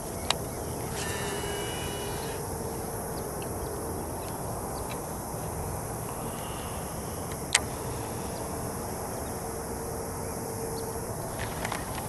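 Steady outdoor noise from a fishing boat, with a faint steady hum and two sharp clicks, one a moment after the start and one a little past the middle.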